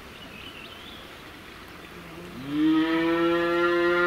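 A calf mooing once, beginning a little over two seconds in: one long call that rises at the start, then holds a steady pitch. It is a calf stranded on the riverbank calling for its mother across the water.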